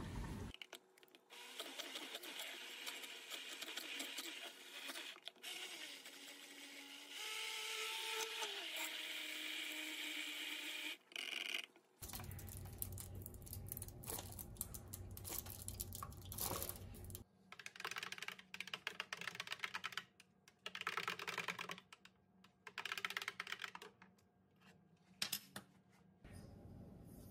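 Food-prep sounds in short cut-together clips: an immersion blender running through strawberries, with its pitch sliding down as it works, then milk poured into the plastic container. The rest is a string of quick clicks and taps as a wooden spoon stirs the drink against the container.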